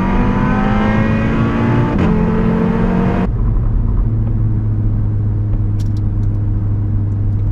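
Audi RS3's turbocharged five-cylinder, heard from inside the cabin, pulling hard under full throttle with a rising note, a quick upshift about two seconds in, then the driver lifts off about three seconds in and the engine settles to a steady low drone.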